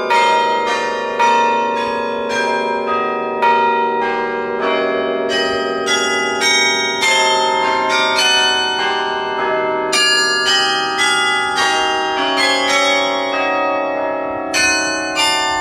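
Carillon bells in Sather Tower played as a tune, close up: about two to three struck notes a second, each bell ringing on and overlapping the next.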